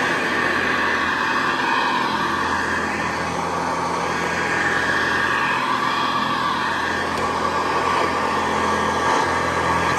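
Hoover Convertible Model 704 upright vacuum cleaner running steadily, its motor and belt-driven agitator making an even whirring hum.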